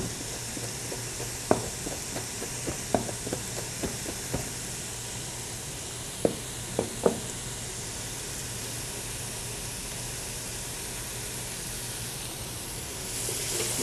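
Vegetables sizzling softly as they sweat in a stockpot over a low steady hum, stirred with a wooden spoon that knocks lightly against the pot a number of times in the first seven seconds.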